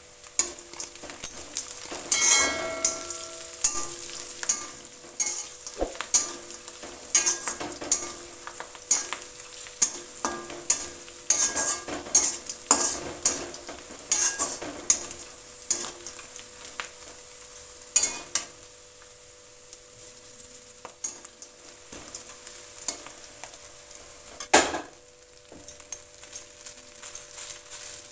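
Onions, peanuts, green chillies and curry leaves sizzling in hot oil in an aluminium kadai while a spatula stirs them, scraping and clinking against the pan over and over.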